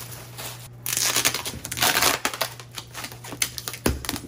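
Cardboard guitar box being slid out of a shipping carton, with plastic air-pillow packing crinkling and cardboard scraping, then a dull thump near the end.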